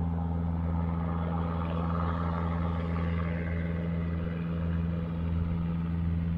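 Robinson R22 Beta helicopter flying away at a distance, its rotors and piston engine making a steady low drone, with a higher rushing note that swells about two seconds in and then fades.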